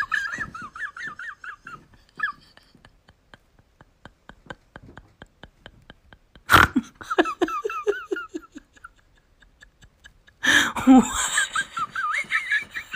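A person laughing helplessly: high-pitched giggles, then a run of quick breathy pulses of silent laughter, then a falling giggle and a louder fit of laughter near the end.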